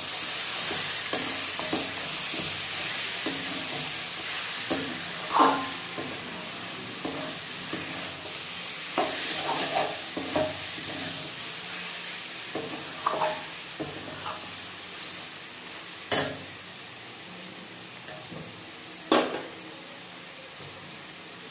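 Chicken pieces sizzling in hot oil with spices in an aluminium kadai while a metal spatula stirs them, scraping and clinking against the pan, with three sharp knocks standing out. The sizzle eases off toward the end as the stirring stops.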